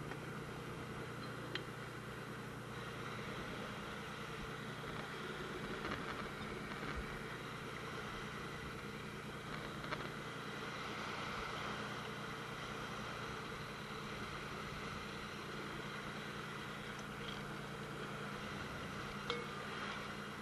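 Fishing boat's engine running steadily, a low even hum with a hiss of water and wind over it, and a few brief knocks.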